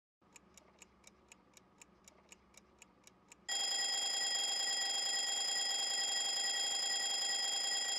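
Faint clock ticking, about four ticks a second, then an alarm clock going off about three and a half seconds in with a steady, unbroken electronic ring.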